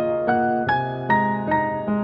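Background music: a gentle solo piano piece, notes struck at an even pace of about two or three a second.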